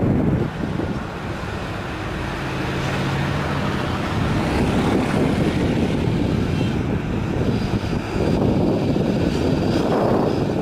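Heavy diesel trucks, a Mitsubishi Fuso and an Isuzu, running under load as they climb a steep hill, a continuous engine drone with a steady low hum for a couple of seconds. It grows louder and fuller near the end as the Fuso draws close.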